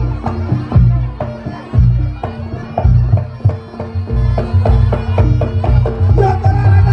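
Reog Ponorogo gamelan music: rapid hand-drum (kendang) strokes over a steady held tone, with a reedy trumpet (slompret) melody coming in near the end.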